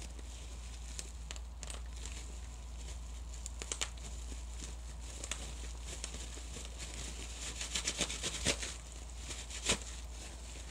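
Bubble wrap twisted and squeezed by hand: the plastic crinkles, with scattered sharp pops of bursting bubbles, a quick run of pops about eight seconds in and the loudest single pop near the end.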